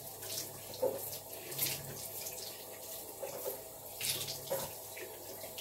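Bathroom sink tap running into the basin, with short splashes every second or so as a person rinses her mouth from a cup after brushing her teeth.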